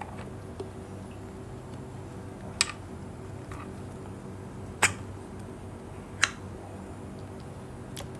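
Three sharp metallic clicks, about a second and a half apart, with a few fainter ticks, as small metal accumulator parts are handled and set into a bore in a 4L60E transmission case. A steady low hum runs underneath.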